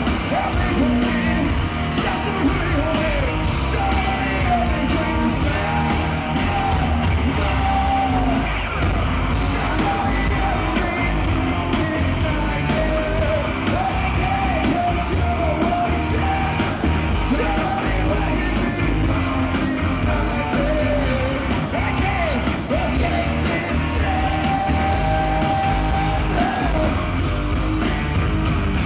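Live hard rock band playing loudly, with a male lead singer's voice over the band.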